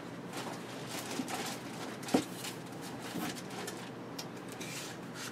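Packaging and small items handled on a desk: a run of light crinkles, rustles and clicks, with one louder knock about two seconds in.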